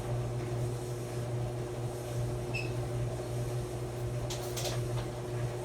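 Maytag clothes dryer running: a steady motor and drum hum, with a few faint clicks about four seconds in.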